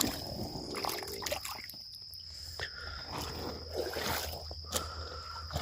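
Shallow water splashing and trickling in short, irregular bursts, with a steady high insect trill running underneath.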